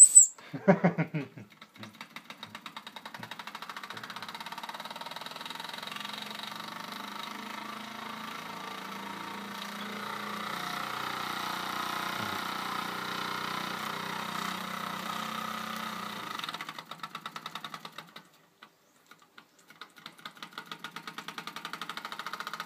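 Vintage Bing toy steam engine running, its small cylinder beating out rapid, even puffs of steam. About sixteen seconds in, the beats grow slower and more spaced out and fade nearly away, then pick up again near the end.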